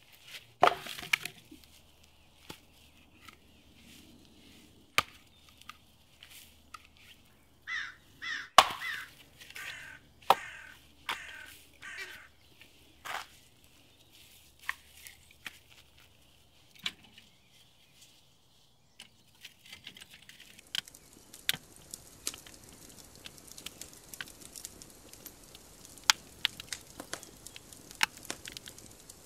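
Split firewood logs knocked together and set down in a fire pit, giving sharp wooden knocks; the loudest comes about eight seconds in. A bird calls about six times in the middle. From about twenty seconds on, a wood fire crackles with many small pops.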